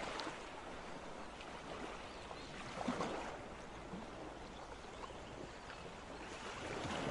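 Steady background hiss with a few faint clinks and knocks of glass bowls being handled; one is a little louder about three seconds in.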